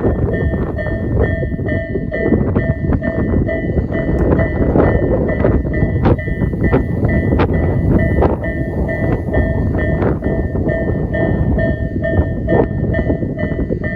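Japanese level-crossing warning bell of the Isesaki type, an electronic tone repeating steadily and rapidly, while a train rumbles over the crossing with sharp wheel clicks over the rail joints.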